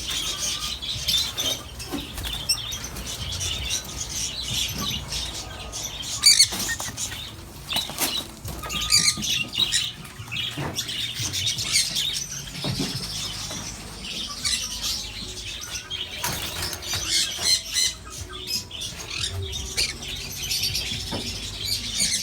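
Many small birds chirping continuously in a dense, overlapping chatter, with scattered short clicks and rustles.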